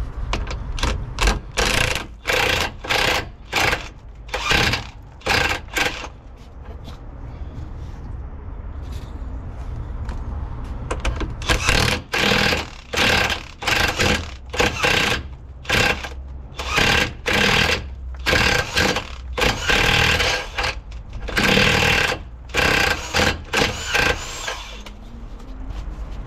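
Impact wrench on a long socket extension hammering at a bolt under the van in repeated short bursts of about half a second, with a steady low hum underneath. There is a gap of several seconds without bursts in the middle.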